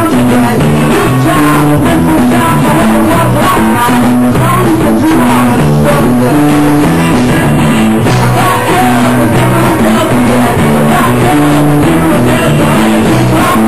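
Rock band playing live and loud: electric guitar, bass guitar and drum kit in a driving, steady rhythm.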